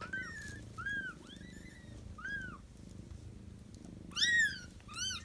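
Newborn kittens mewing: about six short, high-pitched cries that rise and fall, the loudest two near the end, over a low steady purr from the mother cat.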